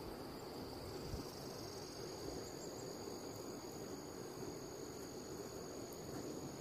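Insects trilling steadily in two high, unbroken tones, the second joining about a second and a half in, over a low, even rushing background noise.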